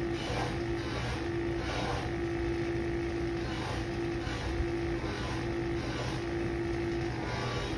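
Electric buffing motor running steadily while a brass trombone part is held against its spinning cloth buffing wheel. A steady hum, with a higher tone that breaks off briefly and returns every second or so.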